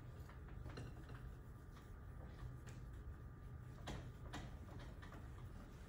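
Dry-erase eraser wiping marker off a whiteboard, faint, with a few light knocks against the board, the loudest about four seconds in, over a steady low room hum.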